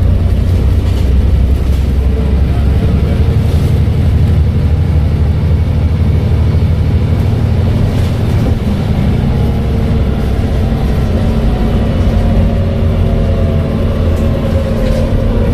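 Volvo B7TL bus's six-cylinder diesel engine running steadily under way, with a faint whine that falls in pitch over the last few seconds.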